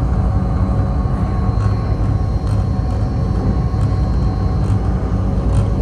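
Stadler GTW electric railcar of the Montserrat Rack Railway running along the line, heard from inside the car: a steady low rumble with a faint steady whine above it and a few light clicks.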